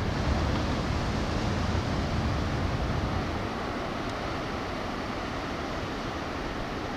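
Wind rumbling on the microphone over the steady wash of surf. The low wind rumble eases about halfway through, leaving the even hiss of the waves.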